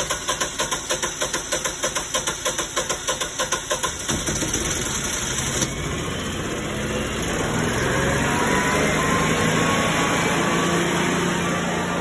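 Generac standby generator engine on propane cranking over, the starter pulsing about five times a second, then catching about four seconds in and running steadily: it is restarting after its lockout fault code was cleared.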